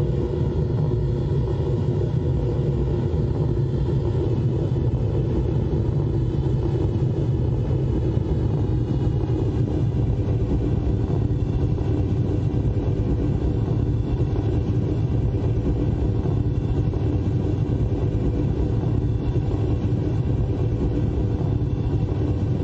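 Live electronic noise music: a loud, steady low rumbling drone with several held tones layered above it, unchanging throughout.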